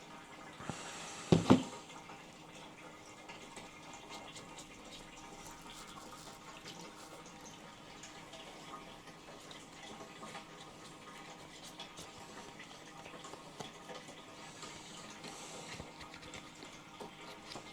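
Water being poured into a potted houseplant, a faint steady trickle. There is a sharp knock about a second and a half in.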